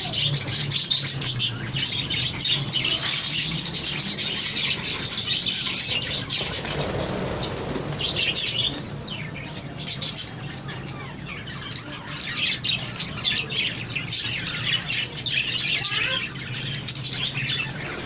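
A flock of budgerigars chattering with fast, high warbling chirps, and some wing flapping. The chatter thins out about halfway through, then builds again toward the end.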